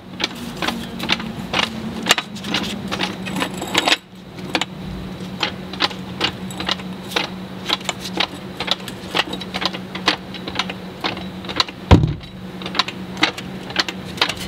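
A jack being worked to raise a car's lower control arm and push its ball joint up into the steering knuckle: a steady run of sharp clicks, about three a second, over a low steady hum, with one heavy clunk near the end.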